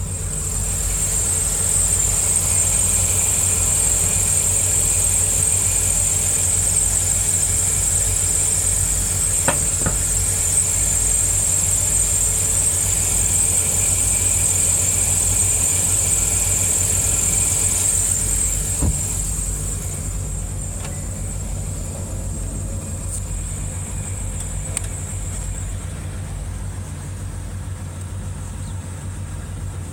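2011 Mazda 6 engine running steadily, with a loud high-pitched whine over its low hum: the exhaust noise the owner reports as a problem. The whine fades out about two-thirds of the way through, leaving the engine's hum.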